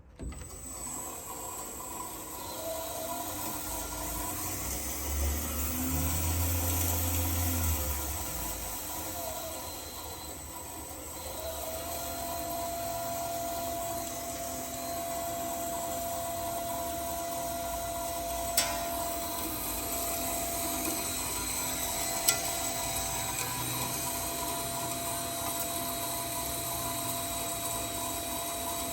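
Saphir GDM Craft 250 x 310 metal-cutting band saw switched on and running steadily, a machine hum with steady whining tones. The hum swells for a few seconds early on, and two sharp clicks come about two-thirds of the way through.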